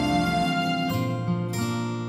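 Background music: plucked acoustic guitar notes, with new notes coming in about a second in.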